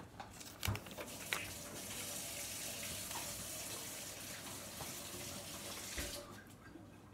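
A steady rushing hiss, like running water, starting about a second in and cutting off sharply near the end, with a soft knock near its start and another as it stops.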